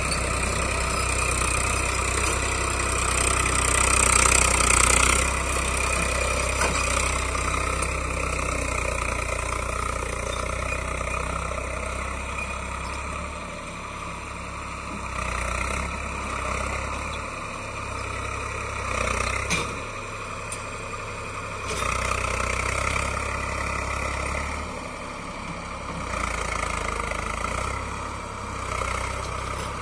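Eicher 380 tractor's diesel engine running steadily while pulling a cultivator through muddy field soil. It is loudest a few seconds in and grows gradually fainter as the tractor moves away.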